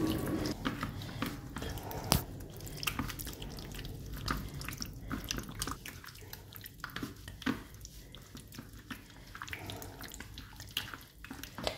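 A bare hand squishing raw boneless chicken pieces through a wet egg and cornflour marinade on a plate: irregular wet squelches and smacks, with one sharper click about two seconds in.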